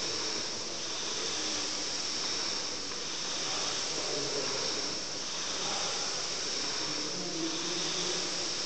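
Concept2 air rowing machine's fan flywheel whooshing as it is rowed, a steady airy hiss that swells gently with each stroke.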